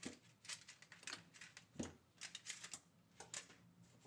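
Faint crinkling and clicking of stainless steel tool-wrap foil being cut and peeled off heat-treated knife blanks, a string of short scratchy crackles.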